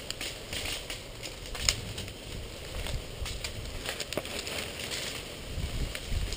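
Scattered sharp clicks and crackles at irregular intervals, a couple of them louder, with a brief low rumble near the end.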